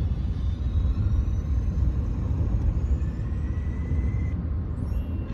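Steady low rumble, with faint thin whistling tones above it, one of them held for about a second before cutting off near the end.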